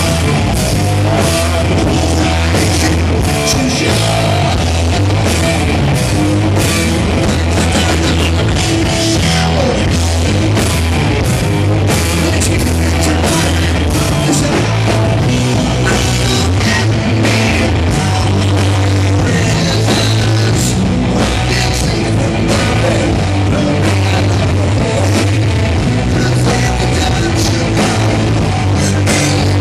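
Live hard rock band playing loud and steady: electric guitar through Marshall amplifiers, a pounding drum kit and a male lead singer.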